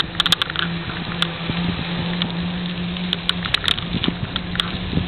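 Ride noise from a bicycle on a paved path: a steady rumble of tyres and wind, with a low steady hum under it and scattered sharp clicks and rattles, most of them in a cluster shortly before the end.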